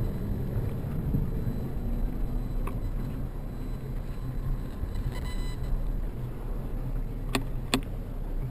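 Steady low rumble of a bicycle riding over city streets, with two sharp clicks close together near the end.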